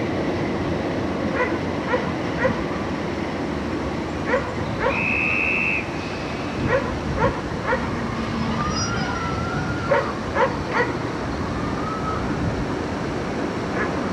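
A dog barking in short, sharp yaps, a dozen or so spread out over a steady background rumble. A steady high tone sounds for about a second near the middle.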